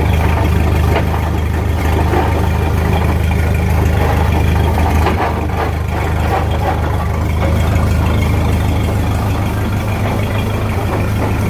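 1929 Model A Ford's four-cylinder flathead engine running steadily with the truck in gear on jack stands, the driveline making a loud clattering racket. The owner thinks the noise comes from the rear end and suspects a damaged spider gear.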